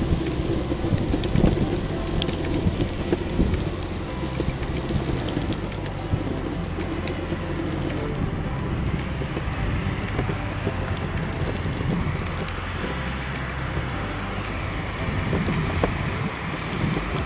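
Meepo Mini 2 electric skateboard rolling over asphalt: steady wheel and road rumble with wind on the microphone, and a rising whine in the second half.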